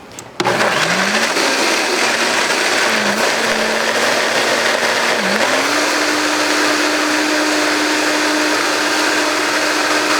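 Electric blender motor switching on and running at high speed. Its pitch dips briefly twice as it works through the ingredients, then steadies a little higher.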